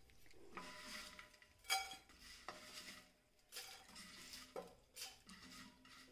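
Crisp fried banana chips being scooped by hand from a non-stick pan into a steel bowl: a light dry rustle of the chips with a few sharp metallic clinks that ring briefly.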